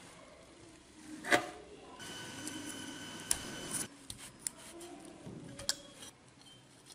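Small parts and wires being handled and fitted on an aluminium heatsink: scattered light clicks and taps, the sharpest about a second in, with a few more in the second half.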